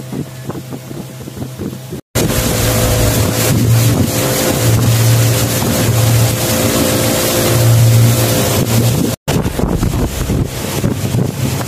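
Motor of a wooden river longboat running steadily under way, with wind buffeting the microphone and water rushing past. The sound is quieter for the first two seconds, then louder; it drops out completely for an instant twice, about two seconds in and about nine seconds in.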